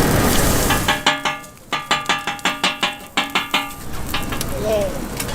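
Metal spatulas clanging on a flat-top griddle in a quick rhythmic run of ringing strikes, about five a second for nearly three seconds, then an even frying hiss.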